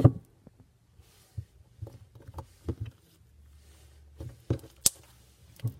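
Butter slime being handled and pressed, giving irregular small clicks and sticky pops, with a thump at the start.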